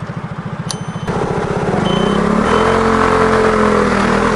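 Piaggio MP3 250 scooter's single-cylinder engine idling with an even low chug; about a second in it turns louder as the scooter pulls away, its pitch rising and then holding steady.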